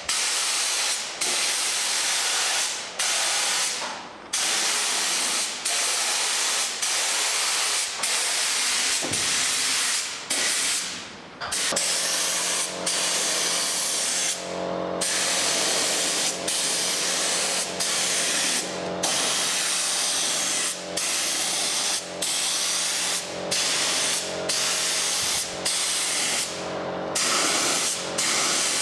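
Compressed-air spray gun spraying two-pack epoxy primer in repeated passes: a loud steady hiss, broken by brief gaps every second or so as the trigger is let off. About halfway through a steady low hum joins underneath.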